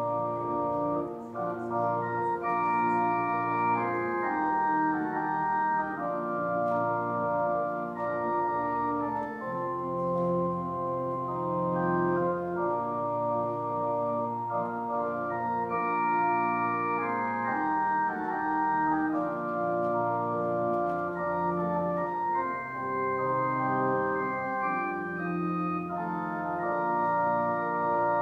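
Church organ playing slow, sustained chords, with the notes held and changing smoothly from one chord to the next.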